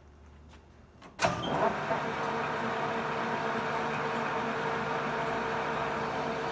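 Metal lathe switched on about a second in with a sharp clunk, then its spindle and gearing running steadily with a steady mechanical hum of several tones.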